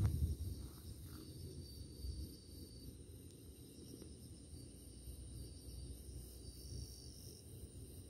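Crickets trilling faintly at night in short, high-pitched pulsed runs over a low rumble, with a dull low thump at the very start.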